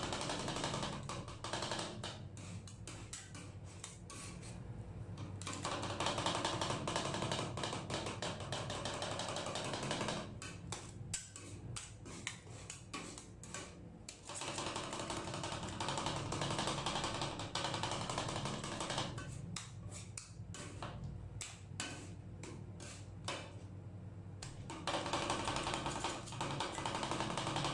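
Two metal spatulas rapidly tapping, chopping and scraping on the frozen steel plate of a rolled ice cream machine as fresh kiwi is mashed into the ice cream base. The tapping comes in fast runs of a few seconds each, broken by quieter stretches of slower scraping.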